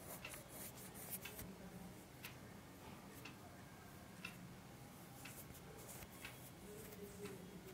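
Quiet room with a clock ticking about once a second over a faint steady hum.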